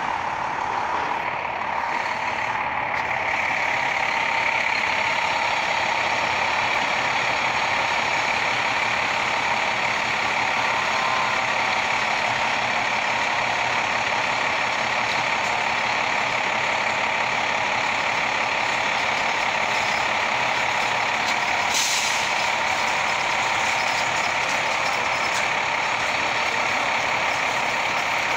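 Diesel engine of a 2010 Seagrave Marauder II fire engine running steadily close by as the rig pulls out and stands in the street, with one short air-brake hiss about three quarters of the way through.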